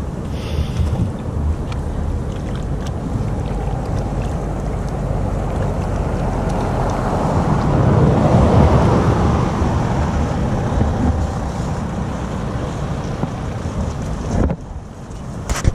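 Wind buffeting the microphone, a steady gusting rumble that swells louder for a few seconds around the middle and drops suddenly near the end.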